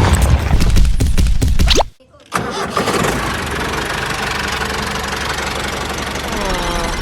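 A loud, deep crashing rumble with many sharp knocks for about two seconds, cutting off abruptly; after a short gap a tractor engine starts and runs steadily.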